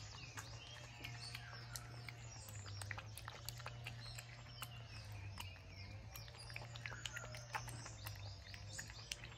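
Puppy lapping milk from a coconut-shell bowl: a steady run of small, irregular tongue clicks, with birds chirping in the background.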